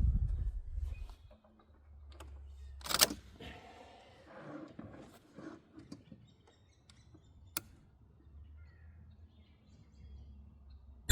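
Quiet outdoor pause with low wind rumble on the microphone and faint bird chirps. There is a sharp knock about three seconds in and a single sharp click about seven and a half seconds in.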